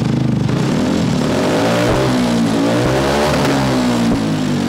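Vespa GTS 300's single-cylinder four-stroke engine revved from idle through an Arrow exhaust with the baffle removed: loud and ear-piercing, the pitch climbing, rising and falling a few times, then easing back down near the end.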